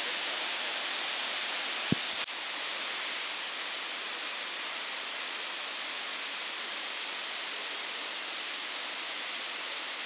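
Steady rushing of a large waterfall spilling down a broad rock face, with a single brief low thump about two seconds in.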